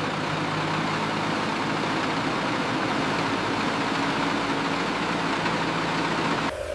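Heavy vehicle engine running steadily under a dense rushing noise. It cuts off abruptly near the end.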